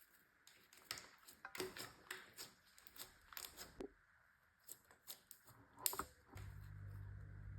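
Slime being pressed and poked by hand, giving an irregular run of small crackling clicks and pops. A steady low hum comes in near the end.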